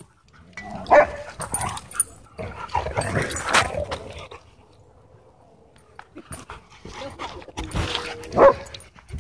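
Dogs barking while they chase and play-wrestle. There is a sharp bark about a second in, a run of barks around three seconds, a quiet gap, and more barks near the end.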